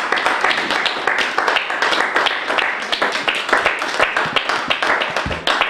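Small audience applauding: a steady, dense patter of many handclaps.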